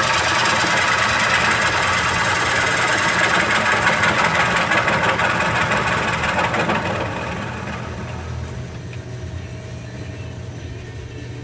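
A bowl gouge rough-turning a spinning wooden bowl blank on a lathe: a loud, steady shaving noise of the cut. About seven seconds in the cut stops and the noise fades, leaving the lathe's low motor hum.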